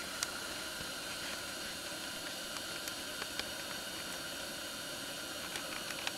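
Steady hiss with a few faint, scattered clicks.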